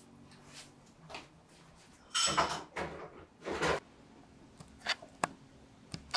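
Tableware being handled and cleared from a wooden table: three short, loud scraping and clattering noises, the last about a second after the first, then several sharp, thin clicks near the end.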